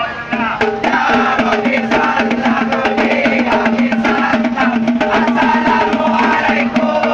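Music with fast, dense drum and percussion strikes under a melody, over a steady held low note.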